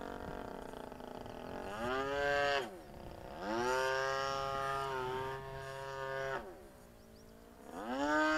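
Model plane's engine flying overhead, with its pitch repeatedly rising and falling. A steady drone climbs and cuts away about two seconds in, runs higher and steadier for about three seconds, drops off, and climbs again near the end.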